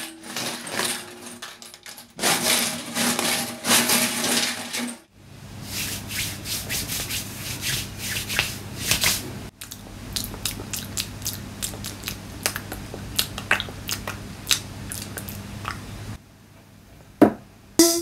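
Rubbing, scraping and crunching sound effects scattered with many sharp clicks, with a steady low hum underneath through the middle stretch. Near the end comes a brief, sharp upward sweep.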